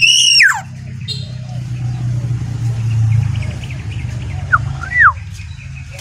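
Caged black-naped oriole calling: a loud, arching, whistled call right at the start and a shorter two-part whistle about five seconds in. A low steady rumble runs under it through the middle.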